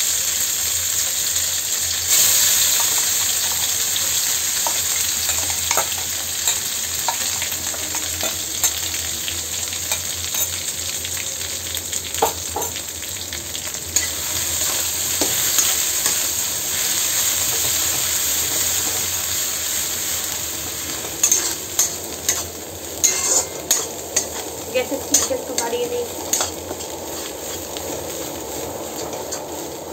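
Mustard-greens paste sizzling in hot mustard oil with nigella seeds in a metal kadai while a spatula stirs it. From about twenty seconds in, the spatula repeatedly knocks and scrapes against the pan.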